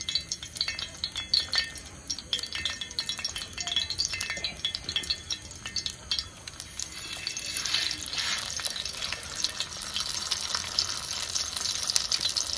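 Tiger prawns frying in a pan, with a utensil clicking and scraping against the pan as they are stirred; the sizzling grows louder and denser about halfway through.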